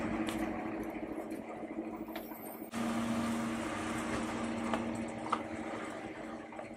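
A steady machine hum with two held low tones under a haze of background noise, shifting abruptly about three seconds in.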